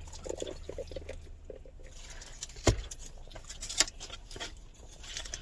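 Close-miked eating of carne asada fries: soft chewing and mouth sounds with scattered small ticks. Two sharp clicks come nearly three seconds in and again about a second later.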